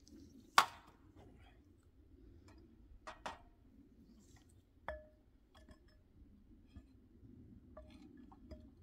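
Sharp knocks and clinks of the pump's hose-and-cable bundle and its fittings striking the well casing and ladder as it is fed down the well by hand. The loudest is a single hard knock about half a second in. A pair of clicks comes around three seconds, a short ringing clink near five seconds, and lighter ticks follow.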